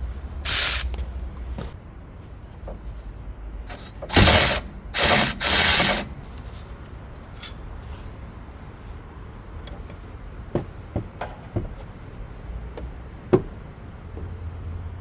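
Power wrench loosening 14 mm brake caliper bracket bolts in short loud bursts: one brief burst at the start, then three in quick succession about four seconds in. A thin metallic ring follows, then a few light knocks of parts being handled.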